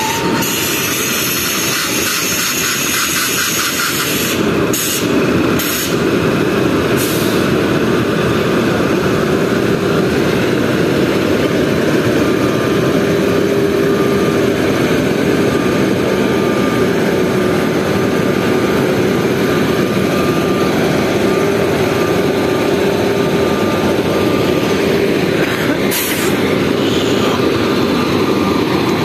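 Indian Railways electric locomotive pulling out at low speed: a steady rumble of its machinery and wheels with a faint hum. A few sharp clicks come about five seconds in and again near the end.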